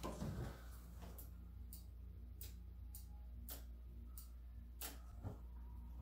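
Faint, irregularly spaced light clicks and ticks, about eight in all, over a low steady hum.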